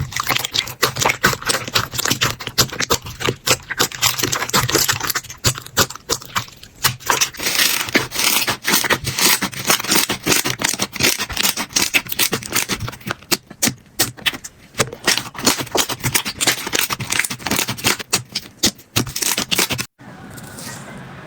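Slime being handled by hand close to the microphone: a dense, rapid run of small crackling clicks and pops. It breaks off abruptly near the end, giving way to a quieter, smoother sound.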